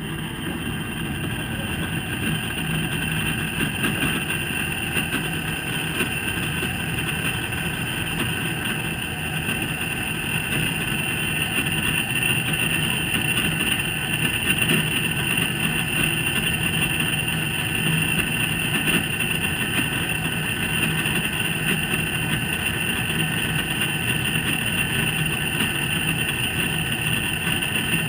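Hitachi Big Drum drum-type washer-dryer making a loud metallic noise as its drum turns in the post-spin loosening phase: a steady high ringing tone over a low hum. The noise appears only in this phase and is the fault the owner is having checked.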